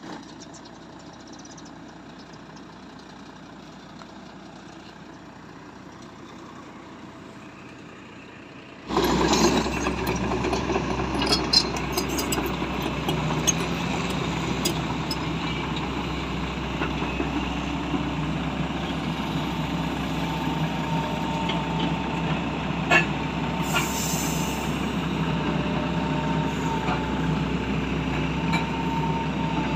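Faint, steady background for the first few seconds. Then, about nine seconds in, an XCMG crawler excavator's diesel engine is suddenly heard close by and keeps running steadily, with scattered sharp metallic knocks.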